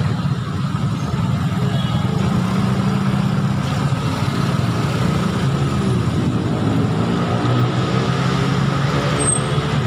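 Motorcycle engine running at low revs and idling while creeping in a traffic jam, with the engines of surrounding cars and scooters mixed in as a steady rumble.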